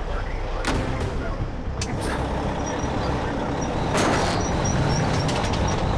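Heavy truck diesel engines running steadily under a winch-and-tow pull on a stuck semi, with short bursts of air-brake hiss about a second in, near two seconds, and about four seconds in.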